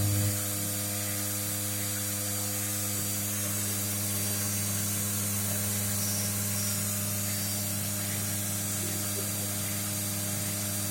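CNC machining centre running: a steady electric motor hum with a constant high hiss.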